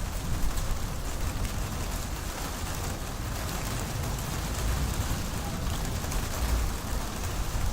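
Heavy rain falling steadily during a thunderstorm, with a low rumble underneath that swells a little near the end.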